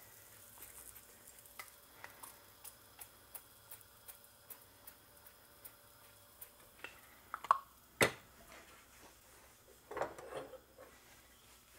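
Flatbread frying in a shallow pan of hot oil, sizzling with scattered small pops and crackles. Two sharp knocks about eight seconds in, the second the loudest sound, and a brief clatter near the end.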